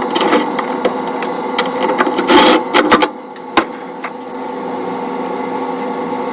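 Royal Coke vending machine humming steadily while its parts are handled, with several sharp knocks and a louder clatter about two and a half seconds in, then a couple more knocks.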